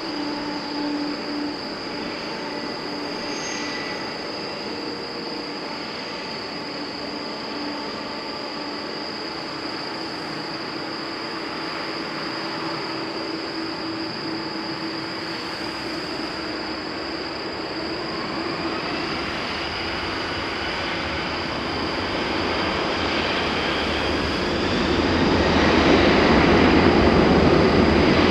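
Boeing 747-400F's four turbofan engines running at low thrust with a steady whine, then spooling up with a rising whine in the last third and growing much louder near the end as takeoff power is set.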